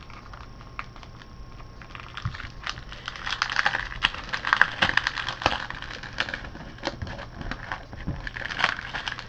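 Clear plastic sleeve crinkling and rustling as planner sticker sheets are handled and slid out of it. Quiet for about the first two seconds, then a run of crackles and clicks.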